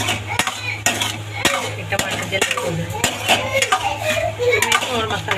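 Steel spoon scraping and clinking against an aluminium kadhai while stirring diced potatoes and tomatoes, in irregular strokes.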